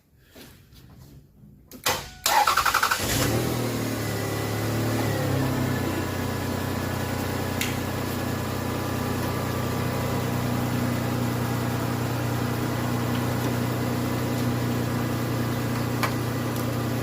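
1997 Toyota Avalon's V6 engine cranking briefly about two seconds in, catching, revving up for a couple of seconds and settling into a steady idle. It is the car starting after a crank-no-start fault in its fuel-injection (EFI) circuit.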